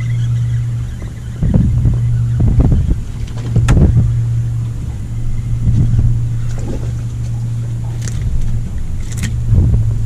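Gusty wind rumble on the microphone of an open boat over a steady low hum, with a few sharp clicks and knocks.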